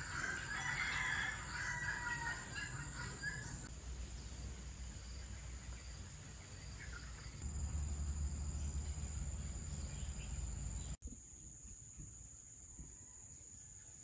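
Rural outdoor ambience: a rooster crowing for the first few seconds over a steady high insect drone, with a low rumble that swells in the middle.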